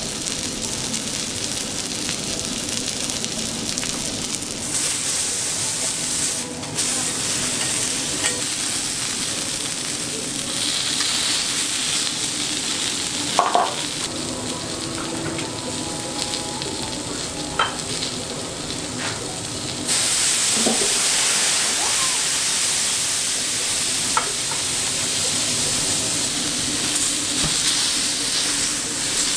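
Beef steak sizzling on a steel teppanyaki griddle: a steady frying hiss that grows louder about five seconds in and again about twenty seconds in, with a few short clinks of the metal spatulas.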